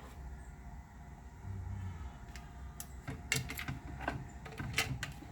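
Light plastic clicks and knocks of washing machine agitator parts being handled and fitted by hand, a few sharp clicks coming in the second half.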